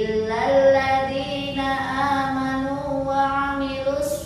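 A woman chanting a prayer, holding long drawn-out notes.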